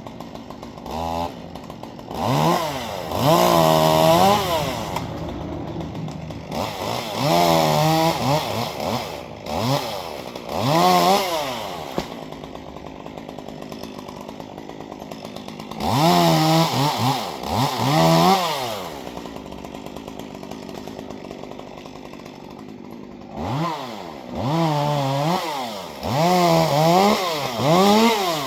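Chainsaw engine revved up in repeated short bursts, settling back toward idle between them about seven times, then shut off at the very end.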